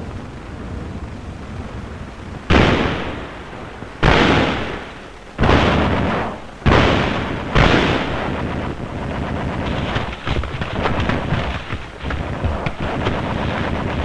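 Live weapons fire on an old film soundtrack: five heavy shots or blasts, each dying away over about a second, then a run of quicker, fainter cracks of rapid fire over a steady rumble.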